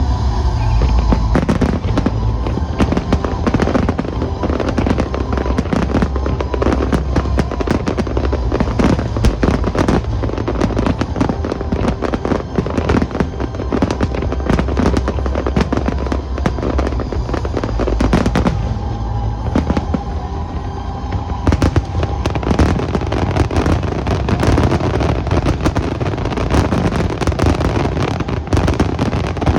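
Aerial fireworks going off in rapid, dense bangs and crackles, over music playing along with the show.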